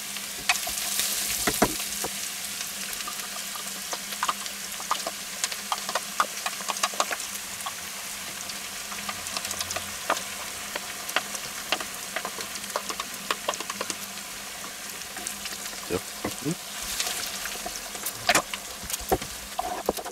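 Onions frying gently in clarified butter in a nonstick wok, a steady sizzle, with many small clicks and scrapes of a spoon against the wok and the tub as a soft white dairy product is spooned in and stirred through. A faint steady hum sits underneath.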